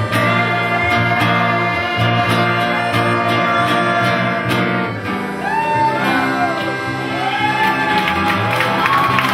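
Live band playing a slow song: held chords with guitar. Singing comes in about halfway through, in long notes that glide up and down.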